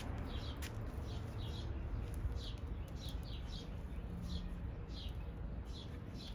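A small bird chirping over and over, short high chirps about one or two a second, over a steady low background rumble.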